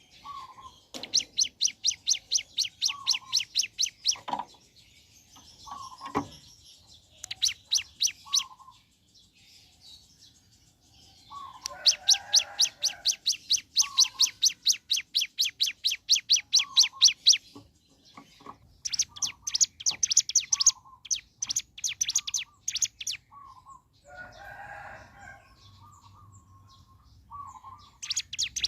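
Ciblek gunung, a prinia, singing its rapid rattling "ngebren" trill in repeated runs of a few seconds each, the longest about six seconds. Between the runs come short lower chip notes about a second apart.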